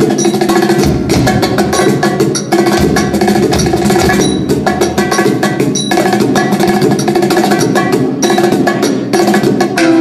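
Drum kit and percussion being played in quick, dense strikes along with music that holds steady pitches underneath.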